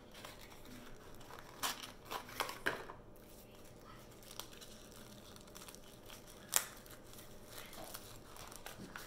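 A small cardboard box being handled and slid open: quiet rustling and scraping of paperboard. A few sharp clicks come about one and a half to three seconds in, and one more about six and a half seconds in.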